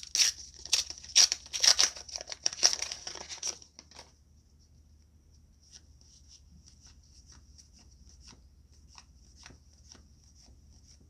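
Trading-card booster pack wrapper being torn open and crinkled for about the first three and a half seconds. Then faint soft ticks of cards being handled and flicked through.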